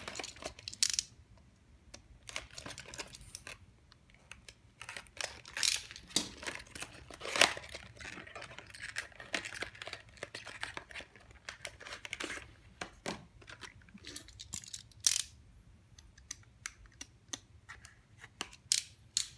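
Trading-card deck packaging being opened by hand: irregular crinkling of plastic wrap and pouch, short tearing and sharp clicks of cardboard and plastic, with a box cutter working at the tape of a clear plastic deck case.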